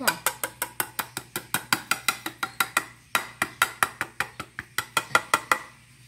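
Quick run of sharp plastic clicks, about seven a second, as a vacuum cleaner's pleated filter and its orange perforated plastic cage are worked by hand. There is a brief pause about three seconds in, and the clicking stops shortly before the end.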